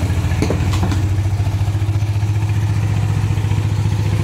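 Wooden fishing boat's engine running steadily as the boat motors past on the river, a low hum with a fast, even throb.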